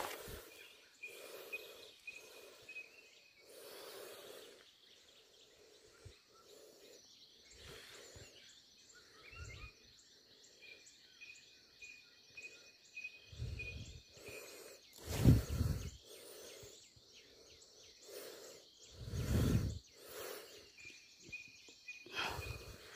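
Quiet outdoor ambience: a steady high drone with a thin, pulsing whistle and faint chirps, likely insects and birds. It is broken by a few low thumps, the loudest about fifteen seconds in and again about nineteen seconds in. No rooster crow stands out.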